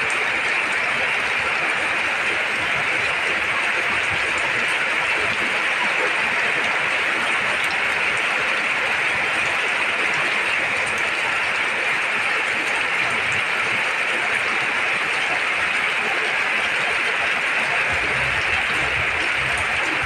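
Heavy rain falling steadily, a dense even hiss that holds without letting up.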